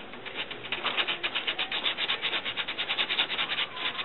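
Rapid back-and-forth rubbing or scraping strokes on a wooden picture frame being worked by hand, about seven or eight strokes a second, growing louder about a second in.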